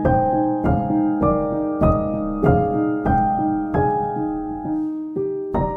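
Background piano music: a slow melody of single struck notes, about one every 0.6 seconds, each ringing on and fading before the next.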